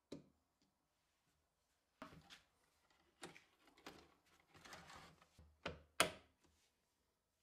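A steel toggle hold-down clamp on a plywood block being handled on a plywood jig: quiet knocks and scrapes of wood on wood as it is set down and slid into the T-track. Near the end come two sharp metallic clicks as the clamp's lever is flipped up.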